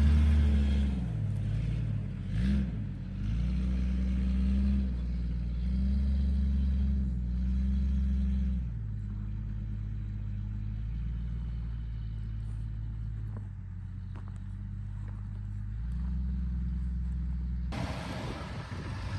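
Vehicle engine running, its pitch rising and falling in steps as it revs and changes speed; near the end it gives way to a rushing wind-like noise.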